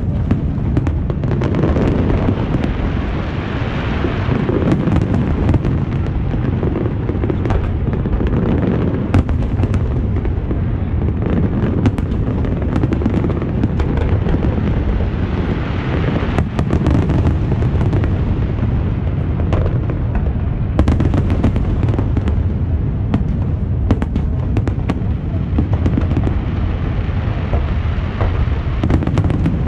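Fireworks display: a continuous dense barrage of aerial shell bursts, a steady rumble of booms with many sharp cracks and pops on top.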